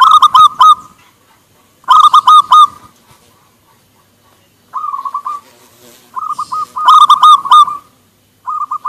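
Zebra doves (perkutut) cooing and answering one another: about five short phrases of quick, hooked coo notes, each under a second, with short pauses between, some phrases louder and clearer than others.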